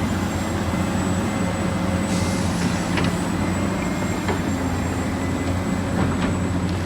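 A steady, engine-like mechanical drone with a few light clicks.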